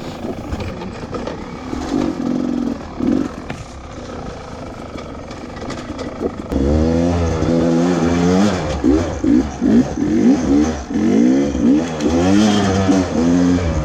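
Beta 300RR two-stroke enduro motorcycle engine on the trail. It runs softly at low revs at first. About halfway through it gets loud and revs up and down over and over as the throttle is worked.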